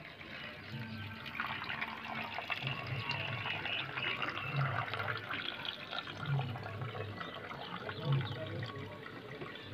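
Water crackling and bubbling in a clear plastic cup holding a stone, over background music with a slow, low beat.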